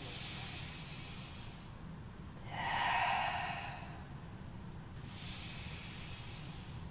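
A woman breathing slowly and deeply in and out, three long audible breaths with the loudest about three seconds in, paced with a yoga exercise's inhale-and-exhale cues.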